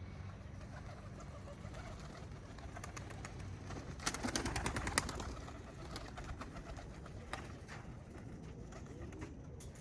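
Birmingham roller pigeons moving about after landing, with a second-long flurry of rapid wing flapping about four seconds in and scattered sharp clicks afterwards.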